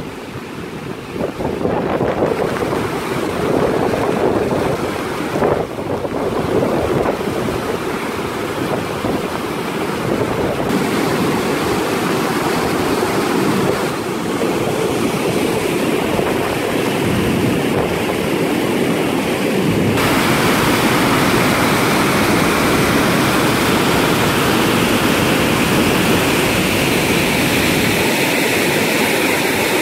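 Muddy floodwater rushing through a concrete channel: a loud, steady noise of turbulent water. It becomes louder and hissier about twenty seconds in, as the white-water rapids come close.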